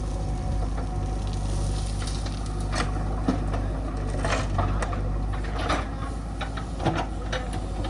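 Diesel engine of heavy machinery running steadily, with scattered short knocks and clatters through the second half.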